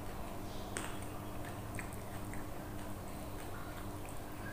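A person chewing food close to the microphone, with scattered small clicks, over a steady low hum.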